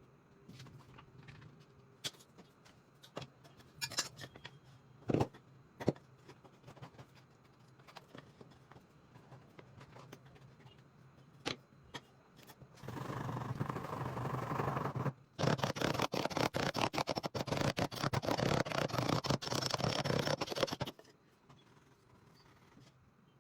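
Workshop handling sounds from woodworking on a table: scattered light taps and knocks, then, about thirteen seconds in, roughly eight seconds of continuous rapid scraping on wood that stops abruptly.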